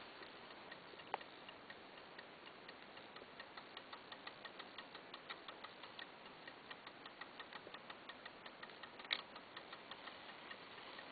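Old Junghans mechanical clock movement ticking faintly and evenly, about four ticks a second. A sharper knock comes about a second in, and a louder one about nine seconds in.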